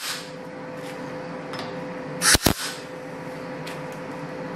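MIG welder striking a short tack weld on steel: one brief burst of about a quarter second, some two seconds in, over a steady background hum.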